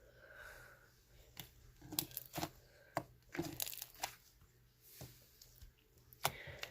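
Foam-bead slime being squished and stretched by hand, giving irregular clicky crackles and pops, about a dozen sharp clicks scattered across the few seconds.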